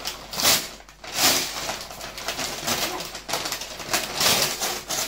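Gift-wrapping paper crackling and tearing as a large present is pulled open by hand, in several loud bursts: about half a second in, just after a second, and again around four seconds.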